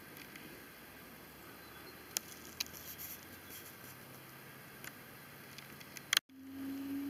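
Faint outdoor background hiss with a few small clicks. Near the end a sharp click, a brief dropout, then a low steady hum.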